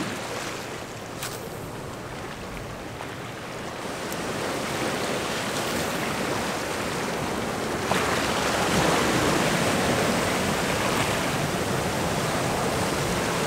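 Ocean surf washing and swirling against a rocky shoreline, a steady rush that swells louder about eight seconds in.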